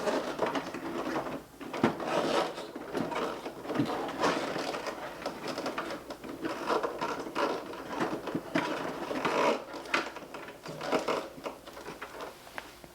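Hands working on the plastic casing and wiring of an air conditioner's indoor unit: irregular clicks, knocks, rattles and scraping of plastic parts and wiring.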